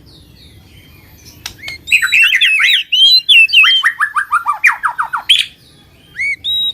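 Songbird song. After a quiet first second and a half it breaks into fast chattering phrases, then a rapid run of quick downslurred notes that step lower and lower, with a few short rising whistles near the end.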